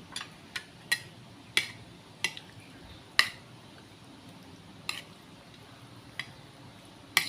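A utensil clinking against a bowl, with about nine sharp, irregular clinks as beef in sauce is spooned out.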